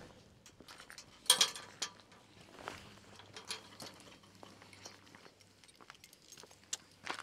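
Metal field gate clinking and knocking as it is opened and held, a run of sharp metallic clicks with the loudest about a second in and another near the end.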